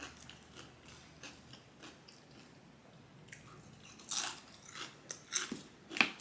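A person chewing and biting crunchy food: quiet mouth sounds at first, then several louder crunches in the last two seconds.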